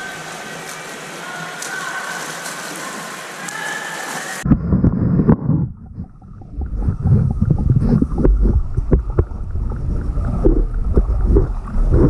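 Splashing of a swimmer's freestyle strokes heard from above the water. About four and a half seconds in, the microphone goes under and the sound changes abruptly to a muffled, low underwater rumble. Irregular bubbling and sloshing pulses from the swimmer's arm strokes and kicks follow as he nears the camera.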